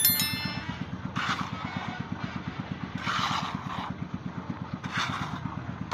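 A small engine running steadily with a low, even throb, joined by a few brief rustling scrapes as dry cement-sand mix is scooped by hand. A short bright ding sounds right at the start.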